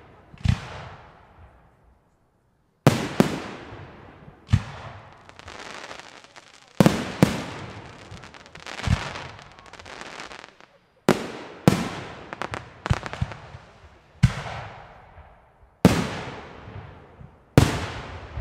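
Aerial firework shells bursting: about a dozen sharp bangs, each trailing off in an echo, with a hissing crackle between some of them.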